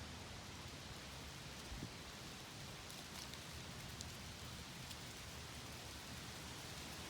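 Light wind moving through autumn trees and dry leaves: a faint, steady hiss with a few scattered light ticks.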